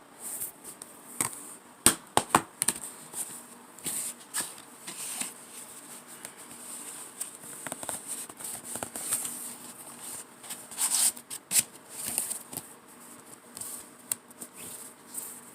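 Hands handling a plastic DVD case and its packaging: irregular rustling with sharp clicks and taps, the loudest about two seconds in and again near eleven to twelve seconds.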